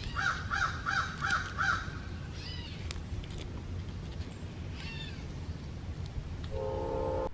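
A bird calling: a quick run of five calls in the first two seconds, then two shorter downward-sliding calls about two and a half and five seconds in. Near the end a steady humming tone of several notes comes in over a low background rumble.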